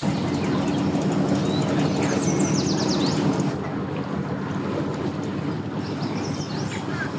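Boat engine idling with a steady low hum, slightly quieter after about three and a half seconds. Birds chirp briefly twice over it.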